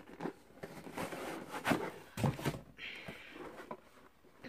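Cardboard packaging being handled and opened: scattered light knocks, scrapes and rustles, with about a second of steady rustling hiss a little after the middle.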